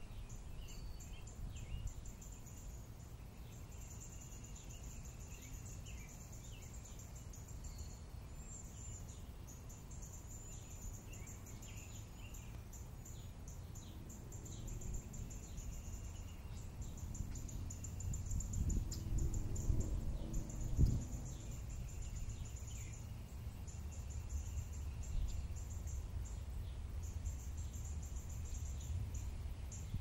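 Field-edge ambience: a steady, high, pulsing insect chirring with scattered bird calls, over a low rumble of wind on the microphone that swells briefly about two-thirds of the way through.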